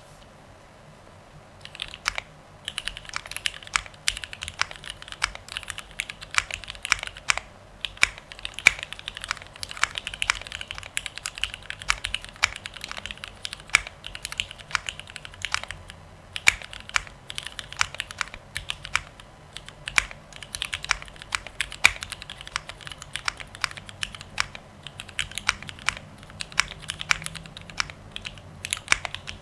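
Continuous fast typing on a Mode Sixtyfive 2024 mechanical keyboard: an aluminium-cased board with a carbon-fibre plate, lubed and filmed Cherry Nixie switches on swapped 50 g springs, and GMK Oblivion keycaps. The typing starts about two seconds in.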